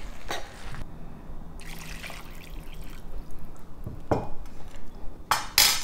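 Water being poured into a pan of rice and vegetables, an uneven splashing trickle, with a few short knocks, two of them near the end. This is the 1:2 rice-to-water addition for vegetable pulao.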